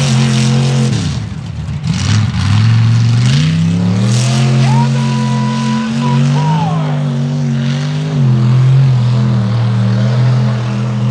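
Mud drag truck's engine at full throttle launching and pulling hard through the mud. Its pitch dips over the first couple of seconds, climbs and holds high, then drops about eight seconds in.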